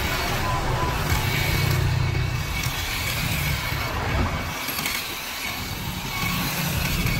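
Kutan cordless mini hedge trimmer running, its reciprocating blades buzzing as they cut through leafy hedge branches, with a brief stop a little past the middle before it starts again.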